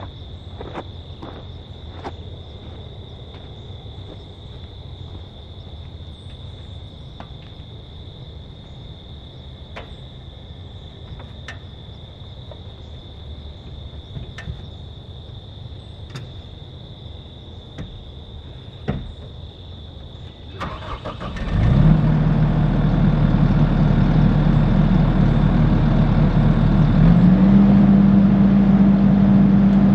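Kubota SVL75 compact track loader's diesel engine cranking and starting about two-thirds of the way in, settling into a steady idle, then stepping up to a higher steady speed near the end. Before it starts there are scattered clicks and a faint steady high tone.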